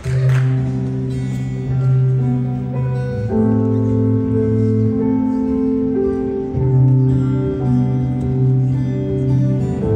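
Solo acoustic guitar strumming the opening chords of a slow waltz, the chords ringing on under each change with no voice yet.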